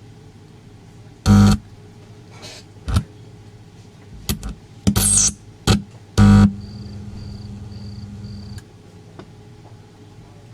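PC multimedia speaker amplifier blaring in several short loud blasts of hum and sound, then a steady hum with four short high beeps, while its volume control is bypassed by shorting. The blasts that come through show the volume potentiometer is the faulty part.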